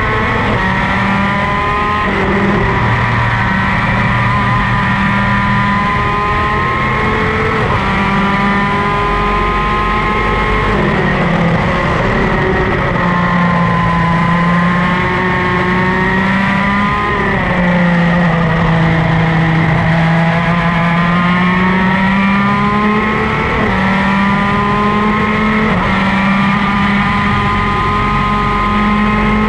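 Superkart's two-stroke racing engine heard from on board at race pace. The engine note repeatedly winds up in pitch and drops sharply as the kart shifts and brakes. It falls lowest and rises slowly about two-thirds of the way through, as if through a slow corner.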